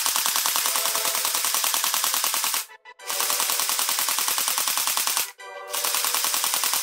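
Toy German WWII submachine gun firing on full auto: rapid clicking shots at about a dozen a second, in three bursts with two brief pauses between them.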